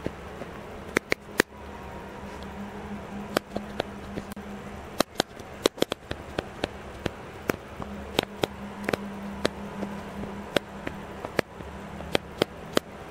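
Camera command dial clicking through its shutter-speed and ISO detents: dozens of short, sharp clicks at uneven intervals, sometimes several in quick succession, as the exposure is changed. A steady low hum runs underneath.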